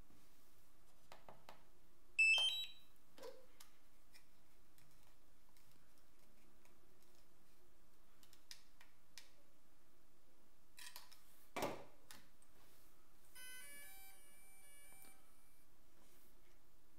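Sharp electronic beep from a DJI RC-N1 remote controller powering on, then a knock about nine seconds later. A DJI folding drone follows with a faint startup tune of short beeps at several pitches as it boots.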